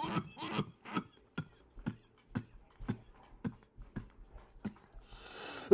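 A run of short, soft clicks, about two a second, then a breathy hiss building near the end.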